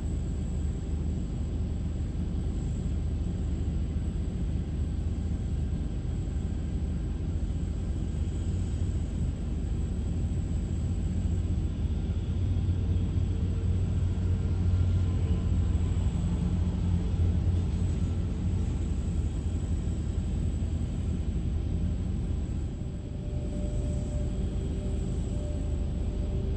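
Taxiing jet airliners: a steady, low rumble of jet engines at taxi power, swelling a little midway. A steady hum joins near the end.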